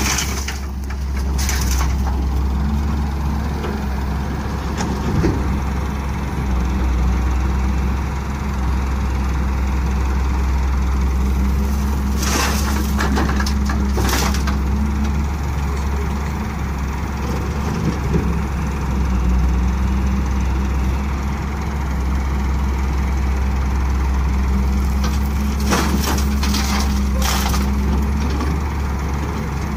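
Diesel engines of a Hyundai wheeled excavator and a tractor running steadily. Three times, evenly spaced, a bucketload of soil and clods crashes and rattles into the tractor's trailer.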